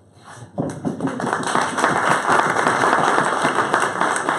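Audience applauding, starting about half a second in.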